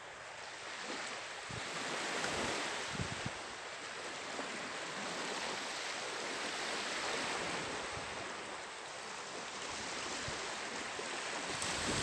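Gentle Baltic Sea surf washing on a shallow sandy shore at low tide, a steady hiss that slowly swells and eases, with a few light wind bumps on the microphone.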